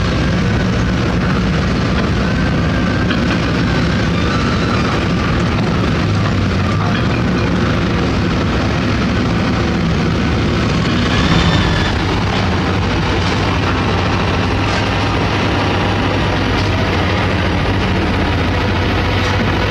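Heavy diesel construction machinery running steadily: a continuous low engine drone. There is a brief swell in loudness about eleven seconds in, followed by a faint higher whine and a few short knocks.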